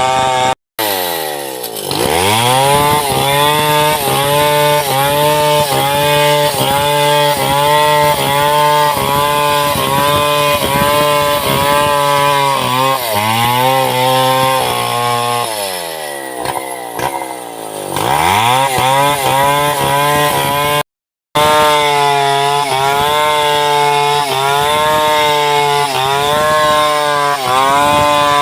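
Gasoline chainsaw ripping lengthwise through a log to saw it into planks, running at high revs with the pitch sagging and recovering as it works through the wood. The sound breaks off abruptly twice for a moment and comes back with the engine revving up.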